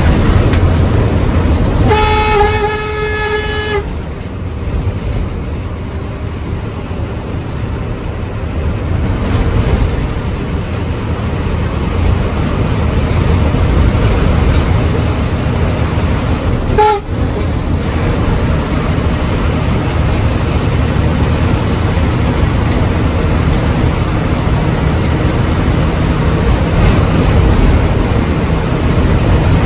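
Moving bus heard from inside, with steady engine and road rumble. About two seconds in, a horn sounds one held note for about two seconds.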